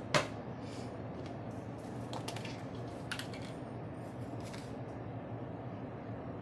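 Kitchen utensils handled while measuring seasoning: one sharp click just after the start, then a few faint scattered taps and clinks, over a steady low hum.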